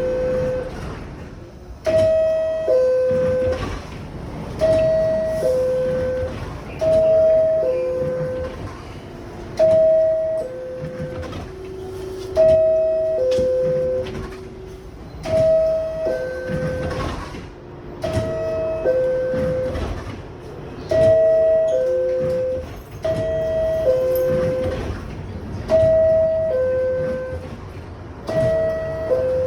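R62A subway car door chime sounding over and over, a two-note falling ding-dong repeated about every two and a half to three seconds, about eleven times, mixed with the clunks of the sliding doors.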